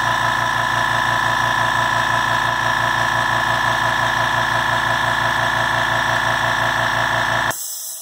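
Harbor Freight Fortress 2-gallon ultra-quiet air compressor running steadily with a fast, even pulse as it refills the tank after cycling back on. Near the end it reaches cut-off pressure and stops abruptly, with a brief hiss of air.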